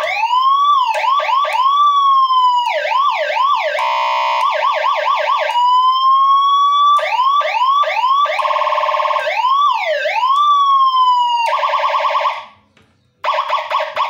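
Electronic 12-tone siren module sounding through a 12-watt speaker, switching between its siren patterns: quick yelping sweeps, a fast trilling warble, rising-and-falling whoops and one long slow rise. It cuts off about twelve seconds in, then starts again with a short fast warble near the end.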